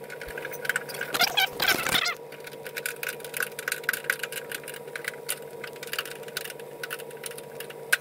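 Many small metallic clicks and rattles of hand work at a VW Beetle's front hood latch as a part is fitted back on, busiest about a second in, over a steady background hum.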